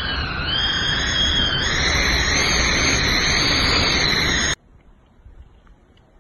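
Hurricane-force wind blowing hard, a loud rushing noise with a high whistle on top that climbs slightly in pitch. It cuts off abruptly about four and a half seconds in, leaving a faint background.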